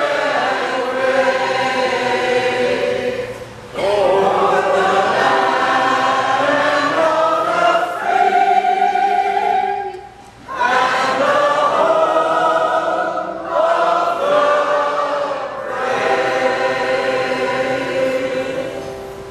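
A choir singing a song in long sustained phrases, with brief breaks for breath about four and ten seconds in, the song closing near the end.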